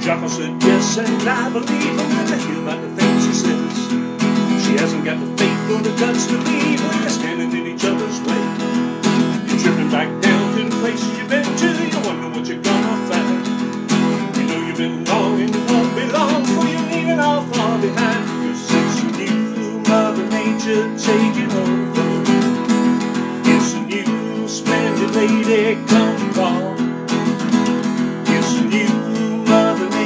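Acoustic guitar strummed steadily in a driving rock rhythm, with a man singing over it at times.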